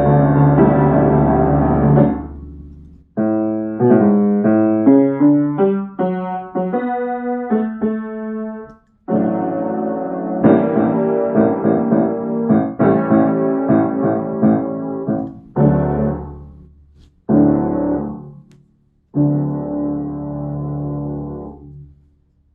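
Solo piano playing a loud passage: a held chord, a run of quick notes, a stretch of heavy repeated chords, then two short chords and a final chord that dies away.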